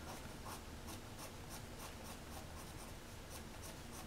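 Faint scratching of a pencil on paper: quick, repeated back-and-forth shading strokes, about three or four a second.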